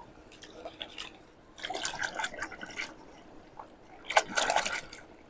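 Wet cleaning of a plastic toy truck: water and scrubbing in two short crackly bursts, the second about four seconds in.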